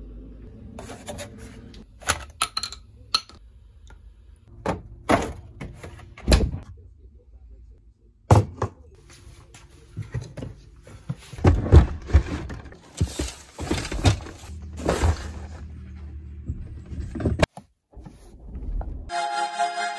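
A string of short clicks, knocks and thunks of things being handled: a fridge opened, a plastic fishing seat box handled, a car's start button pressed. Music starts about a second before the end.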